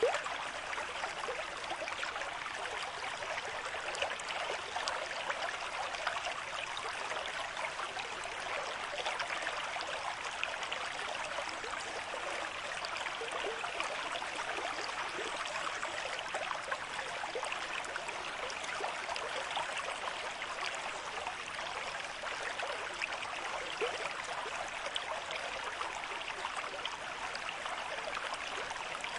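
River stream with moderate flow: a steady rushing and babbling of water over stones, with fine splashing detail.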